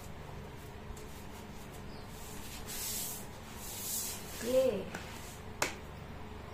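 Soft rustling and shuffling as a person sits down at a table, then a brief murmured vocal sound and one sharp click, over a steady low room hum.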